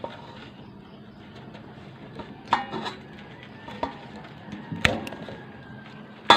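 Several sharp knocks and clinks of hard objects, irregularly spaced, the loudest right at the end, over a low steady background hiss.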